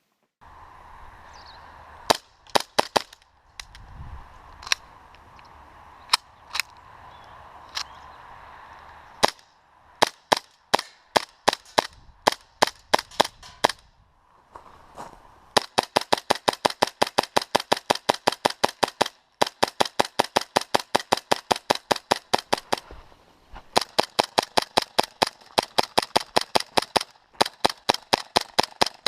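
P226 gas blowback airsoft pistol, converted to run on HPA compressed air through a line, firing: scattered single shots and short groups at first, then long rapid strings of about nine sharp shots a second, broken by two short pauses.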